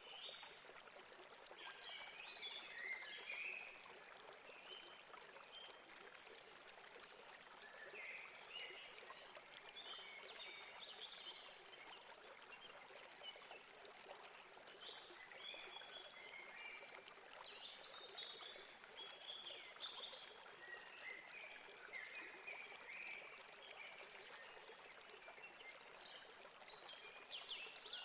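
Faint steady rush of a stream or river, with small birds chirping in short bursts on and off throughout.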